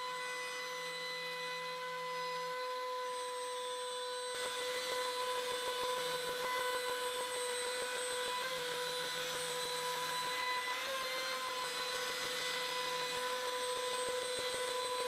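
Trim router spindle on a CNC machine running with a steady whine while its bit cuts through birch plywood. The cutting noise grows louder and rougher about four seconds in.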